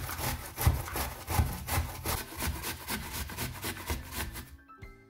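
A fresh apple being grated on a stainless steel box grater: rhythmic rasping strokes, about three a second, that stop near the end.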